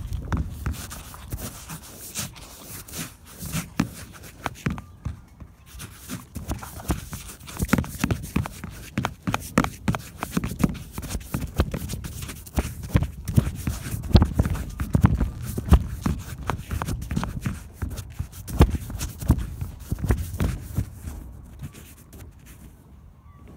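Close knocks, scrapes and low thumps against a phone's microphone as the phone lying face-up is bumped and rubbed, coming in irregular clusters.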